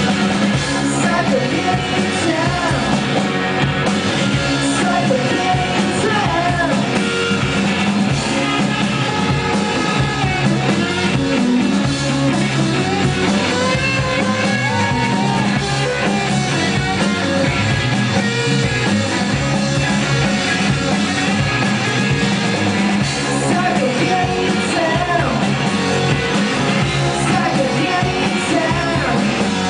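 Live rock band playing a song, with a singing voice over guitar, bass and drums, loud and steady.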